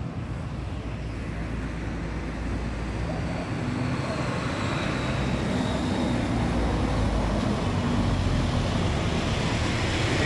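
A car's engine and tyres on the street, growing gradually louder as it approaches, over a steady low traffic rumble.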